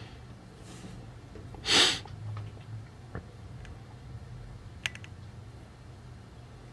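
Quiet soldering-bench sounds: a short breathy hiss about two seconds in, faint ticks, and one sharp light click near five seconds, over a low steady hum.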